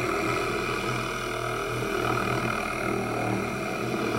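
A large, heavy wooden spinning top, about 4.5 pounds, spinning on its point in a shallow wooden dish, giving a steady low hum.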